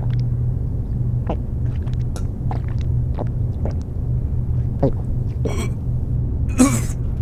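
Cough syrup being gulped straight from the bottle: a run of swallows, then a sharp breath and a loud gasp near the end, over a steady low rumble.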